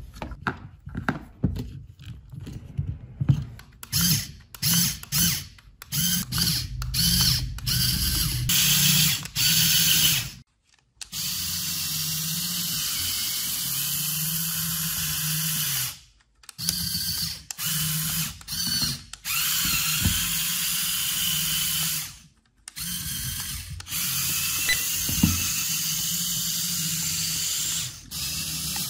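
Lego Technic electric motors whirring through a worm-gear drivetrain. For about the first ten seconds they run in short stop-start bursts; after that come three long stretches of steady running, each ending abruptly, while the car pushes up onto a large rubber tyre.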